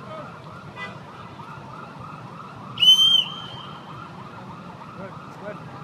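Emergency vehicle siren in a fast yelp, sweeping up and down about four times a second. A loud, high, half-second tone cuts in about three seconds in and is the loudest sound.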